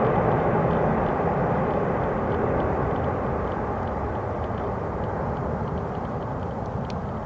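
Jet noise from a Boeing 747-8F's four GEnx-2B turbofans, a steady low rushing roar that slowly fades as the freighter moves away.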